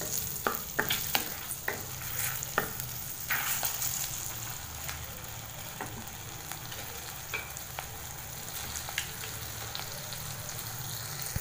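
Bay leaf and green chilli sizzling in melted butter in a kadai: a steady frying hiss with sharp crackles, thick in the first three seconds and scattered after that.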